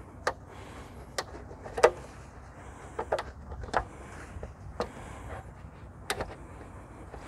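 Short, sharp plastic clicks and snaps at irregular intervals, about nine in all, the loudest about two seconds in, as the plastic teeth clipping the front of a Mini convertible top are worked loose.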